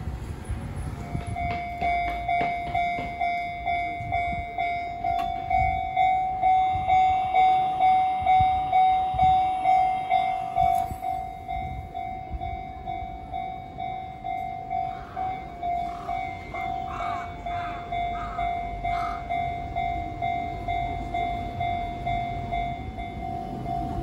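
Railway level crossing warning bell ringing: one pitch struck over and over, about three strikes every two seconds. It starts about a second in and signals that the crossing is closed for an approaching train.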